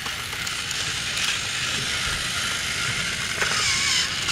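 Battery-powered Thomas & Friends TrackMaster toy trains running on plastic track: the steady whirr of their small electric motors and wheels.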